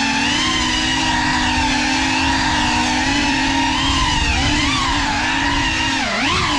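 GEPRC Cinelog35 cinewhoop's brushless motors and ducted propellers whining steadily in flight, heard close from the onboard camera. The pitch wavers with throttle, and about six seconds in it drops sharply and then climbs back as the throttle is chopped and punched again.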